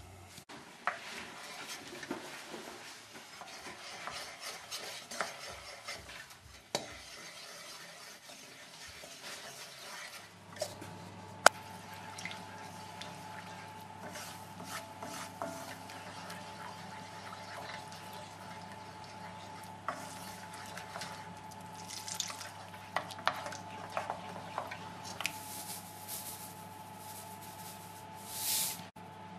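Kitchen utensil stirring, scraping and clinking against cookware, with scattered sharp clicks. A steady low hum comes in about ten seconds in and runs under the clinking.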